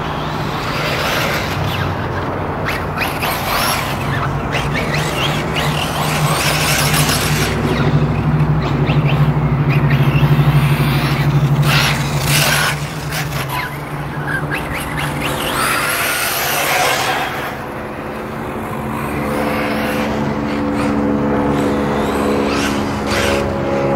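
Kyosho MP9e electric 1/8-scale off-road buggy running laps on a dirt track: its motor and drivetrain whine and its tyres scrabble on the clay, rising and falling as it accelerates and brakes, loudest about ten seconds in, with several short harsh bursts of noise.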